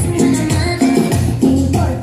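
Upbeat Latin dance music with a steady beat and a shaker.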